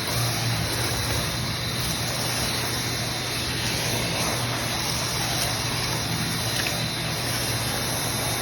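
Blower motor running steadily: a rushing-air hiss over a low hum, with a faint steady high whine.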